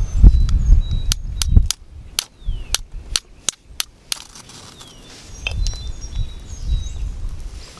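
Wind gusting on the microphone, then a quick run of about ten sharp cracks over a few seconds. Small birds chirp and whistle high and thin throughout.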